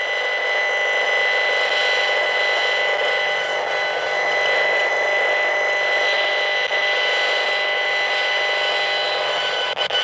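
HF35C RF meter's built-in speaker giving out the demodulated audio of strong microwave signals: a loud, steady electronic buzz made of several constant high tones over a hiss, with a brief dropout and click near the end. The strong signal is traced to a nearby cell phone tower.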